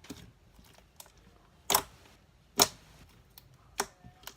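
Slime being squeezed and poked, making sharp clicking pops: two loud ones around the middle, a third near the end, and fainter clicks between.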